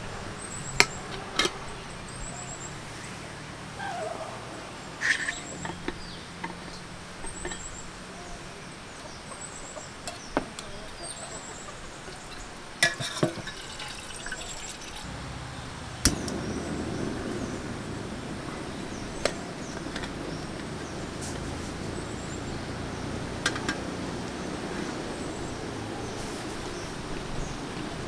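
Light clicks and taps of coffee gear being handled on a table. About halfway through, water is poured from an insulated bottle into a camp kettle, a steady splashing that continues on. Faint high chirps repeat in the background.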